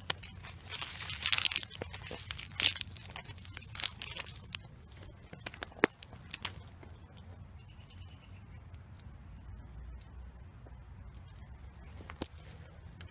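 Digging by hand in stony soil under dry leaves: crunching and rustling of leaves with sharp clicks of stones knocking together through the first half, then quieter scraping with one more click near the end.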